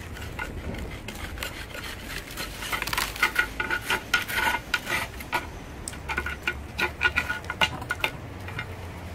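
Metal blade scraping and clinking against the inside wall of a glazed ceramic bonsai pot as it is worked around the edge to cut the root ball free for repotting: irregular scrapes and sharp ringing clinks, busiest from a few seconds in until near the end.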